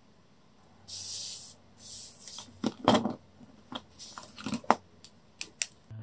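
Pens and small desk items being handled: two short rustling swishes, then a string of clicks and clacks as pens are set down and picked from a pen cup, loudest about three seconds in.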